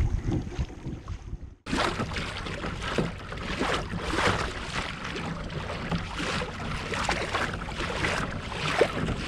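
Water slapping and splashing against a fishing kayak's hull, with wind on the microphone, as a hooked tuna tows the kayak along. The sound drops out for a moment about one and a half seconds in, then the irregular splashing goes on.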